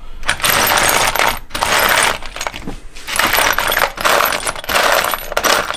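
Loose steel bolts, nuts and springs clattering and clinking in a plastic parts case as a hand rakes through them, in several spells of rummaging.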